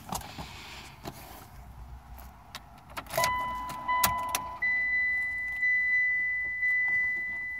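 Car keys jingling and clicking at the ignition of a 2009 Mitsubishi Lancer, then the car's electronic warning chime as the key is turned: a steady beep about three seconds in, followed by a repeating ding about once a second.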